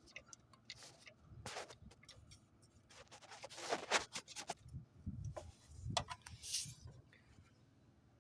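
Small fuses being handled, with scattered sharp clicks and short scraping and rubbing as they are pulled from the fuse holder and cleaned. The scraping is busiest in the middle and near the end.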